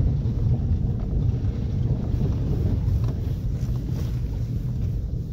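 Vehicle driving slowly over a rough dirt track: a steady low rumble of engine and tyres, with some wind noise on the microphone.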